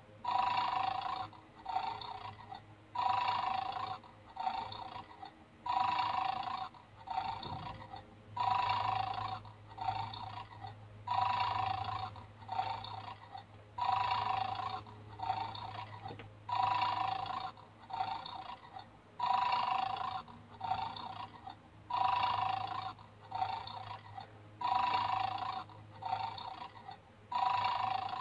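Electronic snoring from a plastic 'mad dog' game toy: a recorded snore played over and over through its small speaker, a longer snore followed by a shorter one about every three seconds. It is the toy's sleeping mode, the sign that the dog is 'asleep' and has not been set off. A faint steady low hum joins in about eight seconds in.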